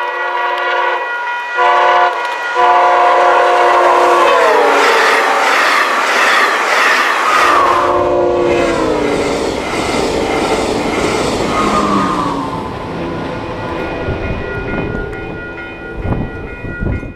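VIA Rail passenger train's air horn sounding in several long blasts, its pitch dropping as the train passes, followed by the loud rush and wheel clatter of the train going by. A level-crossing bell rings steadily under it.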